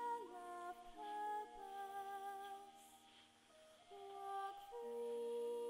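Soft background music of slow, held notes in several voices, sliding from one pitch to the next, dipping quieter near the middle.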